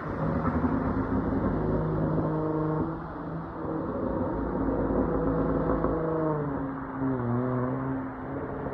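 Dodge Charger SXT's V6 exhaust through Flowmaster Outlaw mufflers, running at steady revs; the note drops and wavers about seven seconds in, then settles again.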